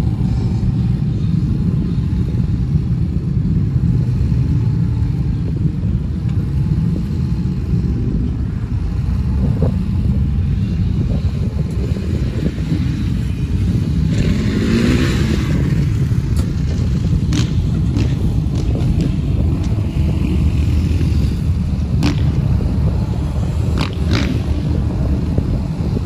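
Can-Am Maverick X3 Max's turbocharged three-cylinder engine running at a steady idle, with a few sharp clicks in the second half.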